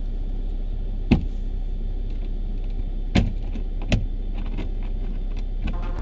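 Steady low rumble of a car idling, broken by three sharp knocks as a frozen windscreen wiper arm is lifted and slapped back against the glass to knock the ice off its blade.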